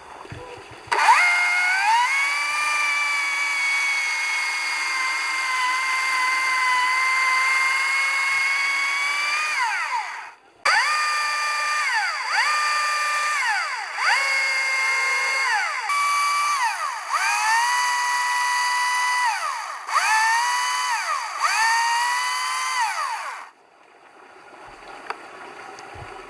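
Electric power tool motor whining as it is triggered: one long run of about nine seconds, then a series of short bursts, each spinning up, holding and winding down.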